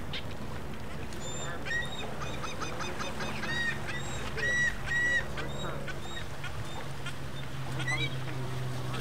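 Birds calling over and over in short, high, arched calls, beginning about a second in, with the loudest calls around the middle. A steady low hum runs underneath.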